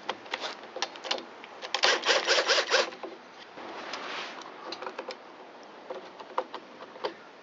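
Ratchet wrench clicking in quick bursts while loosening the two 8 mm nuts that hold a leaf blower's carburetor, followed by scattered light clicks and taps of small parts being handled.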